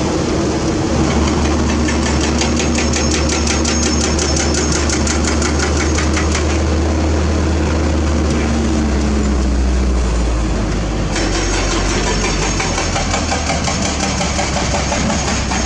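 Diesel truck engine running steadily under way, heard from inside the cab as a deep drone. A fast, regular rattle sits on top of it from about two to six seconds in.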